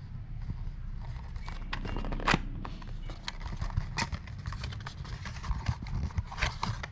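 Cardboard and plastic toy packaging handled and opened: a run of crinkles, rustles and scrapes, with sharper crackles about two, four and six and a half seconds in, over a steady low hum.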